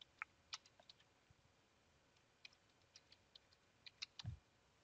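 Faint computer keyboard keystrokes: a password being typed, heard as irregular light key clicks that come in a quick cluster in the second half, with one soft low thump near the end.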